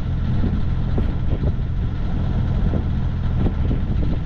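Sailing yacht's auxiliary engine running steadily at low revs, a low, even hum.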